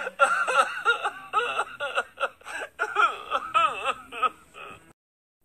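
A voice crying in broken, sobbing wails, the pitch wavering up and down. It cuts off suddenly near the end.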